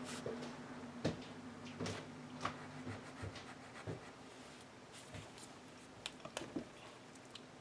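Faint strokes of a Bruynzeel brush pen on paper as a colour name is written and swatched, with a few small clicks and taps scattered through as the pen is handled.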